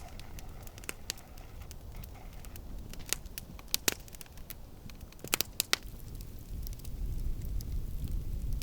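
Wood campfire crackling, with irregular sharp pops and a few louder snaps, over a low rumble that grows a little louder near the end.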